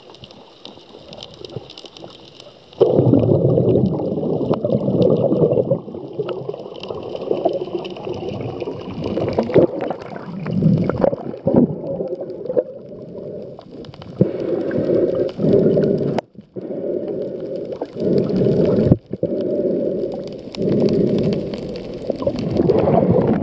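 Muffled underwater rushing and gurgling of water moving around a submerged camera, becoming much louder about three seconds in and going on in uneven surges with a couple of brief cut-outs.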